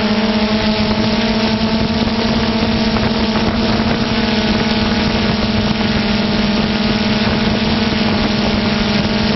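Multirotor camera drone's motors and propellers running with a steady, unchanging buzz.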